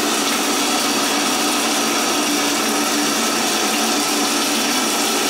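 Water running steadily from a bathtub faucet, a constant rush of splashing water.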